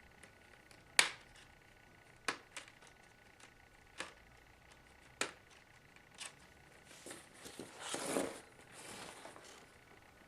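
Plastic clips of an HP Pavilion dm4 laptop's screen bezel snapping loose as a small flathead screwdriver pries along the seam: several sharp snaps, the first the loudest, then plastic scraping and rustling for about two seconds near the end.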